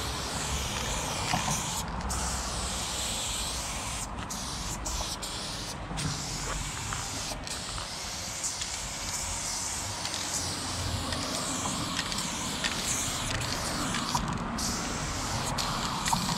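Aerosol spray can fitted with a Montana Level 6 fat cap hissing as paint is sprayed onto a concrete wall, in long bursts broken by a few brief pauses.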